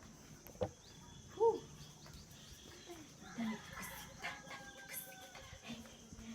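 Faint fowl calls: a rooster crowing in the background, with a short call about a second and a half in and a few light clicks.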